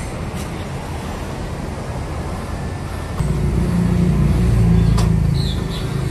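Road traffic: a steady low rumble of passing vehicles, with a heavy vehicle growing louder about three seconds in and easing off near the end. A faint click about five seconds in.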